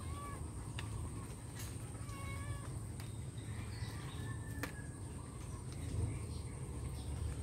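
A few short pitched animal calls: a brief one at the start and a longer, wavering one about two seconds in, with fainter ones near the middle. They sit over a steady low rumble and a thin, steady high whine.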